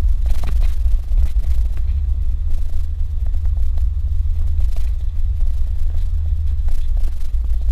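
Steady low rumble of a Suzuki Jimny driving on a dirt road, with a few faint knocks from the bumps and stones under the wheels.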